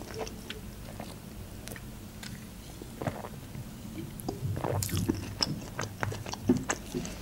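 Drinking cola from a plastic bottle: swallowing and small wet mouth clicks. Quiet at first, with more gulping and mouth noise from about three seconds in.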